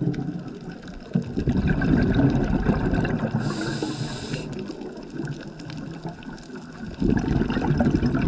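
Underwater recording of a scuba diver's breathing: a gushing, gurgling wash of exhaled bubbles, with a short hiss of an inhalation about three and a half seconds in. The bubbling swells again near the end.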